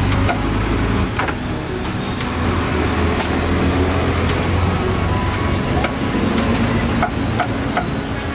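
Cleaver chopping crispy-skinned roast dog meat on a round wooden chopping block, with sharp chops about once a second, unevenly spaced. A steady low rumble runs underneath.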